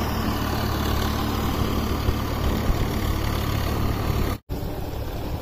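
Steady low rumble of a tractor engine running, under a dense hiss of rain and wind. The sound drops out abruptly for an instant about four and a half seconds in, then carries on slightly quieter.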